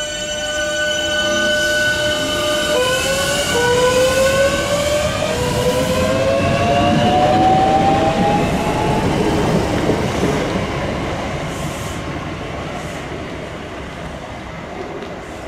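Electric multiple unit pulling away, its traction motors whining in several tones that climb in pitch in steps as it accelerates, over the rumble of the wheels. The sound grows louder as the train passes and fades as it leaves.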